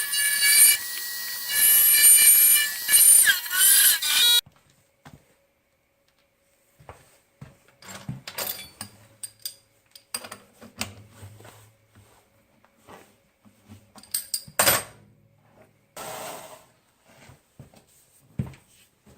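Grizzly G0704 milling machine facing the top of a cast pop-can aluminum billet: a loud, shrill cutting sound with a high ringing whine that cuts off suddenly about four seconds in. After it come scattered light scrapes, clicks and knocks of hand deburring on the aluminum part.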